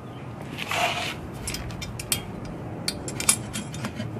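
Metal parts being handled on an engine's exhaust manifold: a short scrape about a second in, then a few light metallic clicks and knocks.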